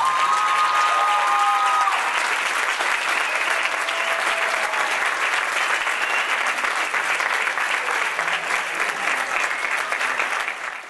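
Theatre audience applauding steadily, with a few long cheering calls over the first two seconds.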